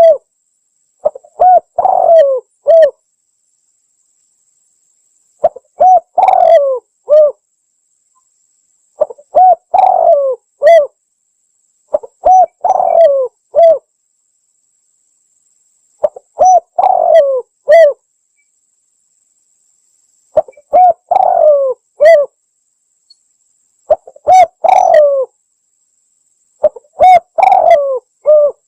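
Spotted dove (tekukur) cooing, used as a lure call: eight phrases of a few short notes and a longer, bending coo, repeated about every three and a half to four seconds with silence between.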